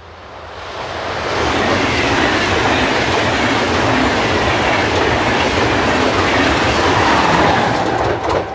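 German InterCity push-pull train, control car leading and a locomotive at the rear, passing at speed: the rush of wheels on rails builds over the first second or two, holds loud and steady, and falls away sharply near the end as the rear of the train goes by.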